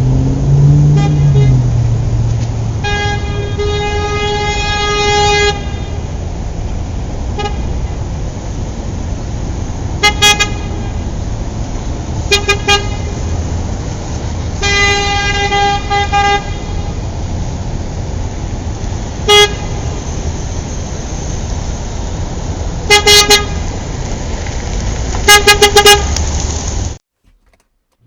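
Car horns honking over steady road-traffic rumble: two long blasts and many short toots, some in quick doubles and triples. The sound cuts off abruptly about a second before the end.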